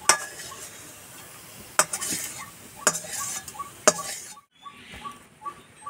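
Steel spatula scraping and knocking against a steel kadai (wok) as fried spice masala is scraped out onto grated boiled potato: four sharp metal clinks about a second apart, with scraping in between. The sound stops suddenly a little after four seconds in.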